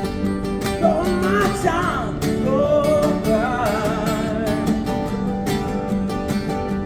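Acoustic guitar playing, with a wordless sung line gliding over it from about one second in to about four seconds.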